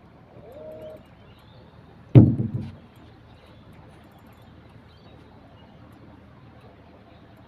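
A single sharp knock about two seconds in, fading quickly, over a faint steady background. In the first second there is a short tone that rises and then holds.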